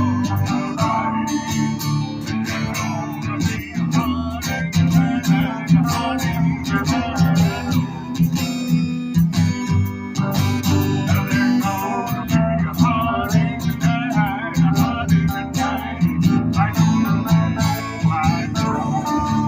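Live band playing: strummed guitars over bass with a steady rhythm, and a wavering melody line above.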